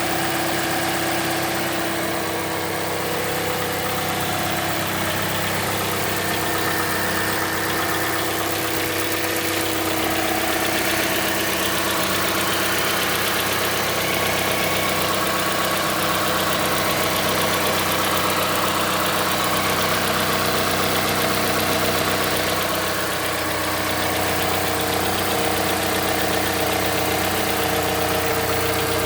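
Mazda CX-5's Skyactiv 2.5 four-cylinder petrol engine idling during a cold-start warm-up, with a knock that sets in several seconds in. The knock comes only while the engine is cold, and the owner does not know whether it is normal.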